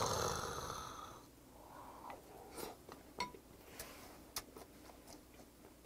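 A long breathy exhale after a shot of soju, fading over about a second. Then quiet chewing, with a few light clicks of a spoon against a ceramic bowl.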